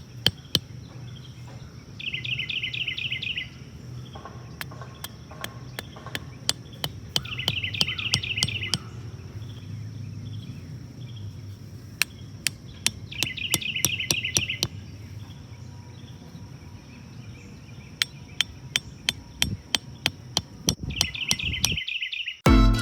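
Runs of sharp taps or knocks, like light hammering. Over them a short trilling bird or insect call repeats about every five to six seconds against a steady high-pitched drone.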